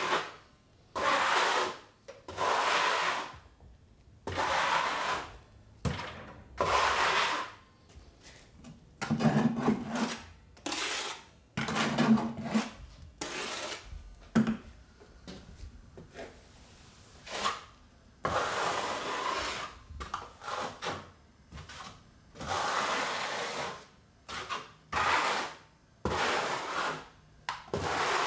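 Steel notched trowel scraping thinset mortar across drywall in repeated strokes, each about a second long, with short pauses between them.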